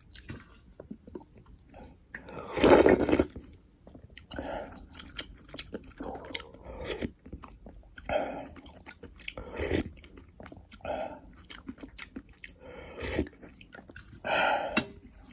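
Close-miked eating of sausage stew and beef: wet chewing and biting noises every second or so, with one louder, longer burst about three seconds in.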